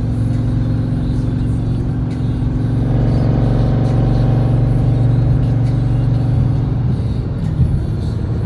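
Supercharged Hemi V8 of a Jeep Grand Cherokee Trackhawk, heard from inside the cabin, droning steadily at cruise through its open Gthaus valved cat-back exhaust. The drone grows fuller and a little louder about three seconds in and eases back near the end.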